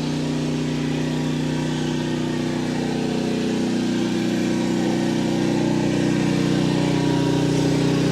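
Pressure washer engine running steadily at a constant speed, powering a downstream-injection soft wash spray of sodium hypochlorite.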